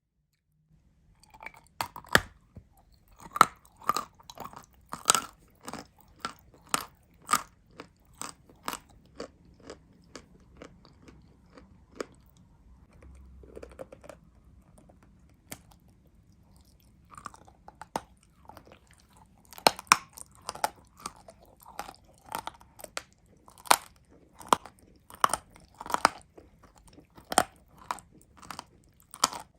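A person biting and chewing crunchy edible clay: sharp, dry crunches, often several a second. Midway there is a quieter stretch of softer chewing, and then steady crunching starts again.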